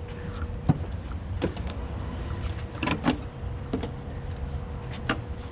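Scattered knocks, clicks and creaks from handling work on the car, over a steady low rumble and a faint steady hum.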